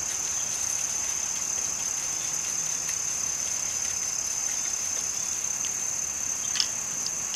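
Steady high-pitched chirring of insects. A few faint light clicks, the clearest near the end, come from a paintbrush working paint and water on a paper plate.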